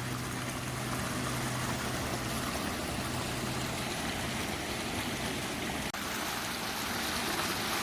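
Rushing creek water, a steady even rush, with a low steady hum underneath for the first half.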